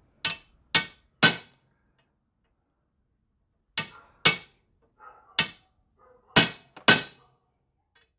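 Hammer striking a steel center punch on flattened half-inch galvanized steel pipe held in a vise, denting the metal to mark where the drill bit will start. Three sharp metallic taps, a pause of about two seconds, then five more.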